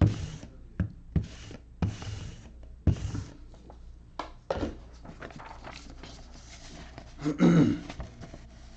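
A handful of short rustling, handling sounds in the first three seconds, typical of cello-wrapped card packs being picked up and moved, then quieter handling. About seven and a half seconds in comes one brief, loud, low voiced sound.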